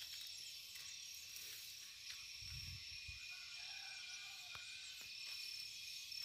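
Faint outdoor ambience: a steady, high-pitched insect drone with a few brief chirps, and some low thumps a little before halfway through.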